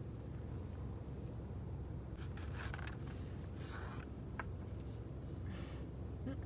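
Steady low hum of a car interior, with a few brief scratching and rustling sounds and a small click as an Akita puppy shifts its paws on the leather centre console and brushes against the driver.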